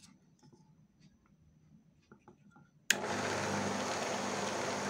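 A Kairos 220 V, 200 W coconut-grater electric motor is switched on about three seconds in. It starts at once and runs steadily, with a hum and the rush of its spinning cooling fan. Before that there are only faint clicks from handling the motor.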